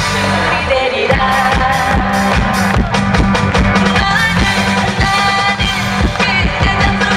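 A trot song performed with a woman singing over an upbeat band backing with a steady drum beat.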